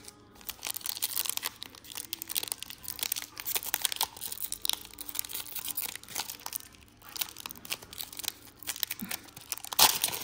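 Foil wrapper of an NBA Hoops trading-card pack crinkling and crackling as fingers work it open, with a brief lull partway through and a sharp rip of the foil near the end.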